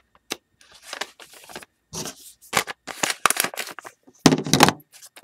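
A plain white paper envelope being opened and its contents handled: a run of short paper rustles, scrapes and tearing sounds, the loudest about four seconds in.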